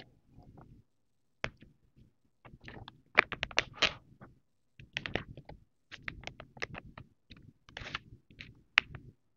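Soft plastic baby-wipes packet crinkling and its hard plastic flip-top lid clicking as it is opened and a wipe is pulled out: a string of short, sharp crackles and clicks.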